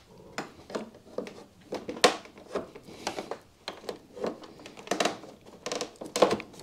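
Plastic trim pry tool working a Honda Gold Wing's plastic side fender panel back into place: a string of irregular clicks and knocks of plastic on plastic, the loudest about two seconds in and again near the end.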